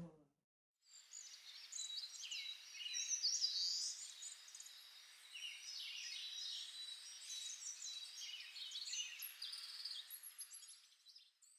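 Birds chirping: many short, overlapping high calls over a thin, steady high tone. The sound fades in about a second in and fades out near the end.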